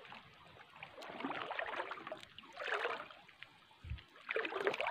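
Shallow seawater sloshing and splashing in a few separate swells as feet wade through it over a rocky reef flat, with one short dull thump near the end.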